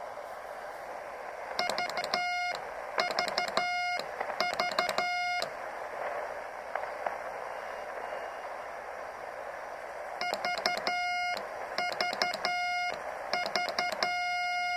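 Morse code sent on a homebuilt 40-meter QRP direct-conversion transceiver: its sidetone beeps out dots and dashes in two runs, the second ending in a long held tone. Steady receiver hiss fills the gaps between.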